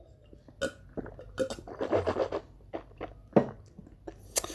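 A person drinking in close-up, a string of separate gulps and swallows, and a burp.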